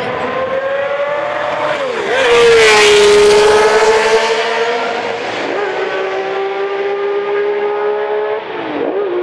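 Honda RA300's 3.0-litre naturally aspirated V12 at full throttle, passing close by about three seconds in, where it is loudest. It shifts up three times, with short dips in pitch about two, five and a half and nine seconds in, and runs on at a steady high note between shifts.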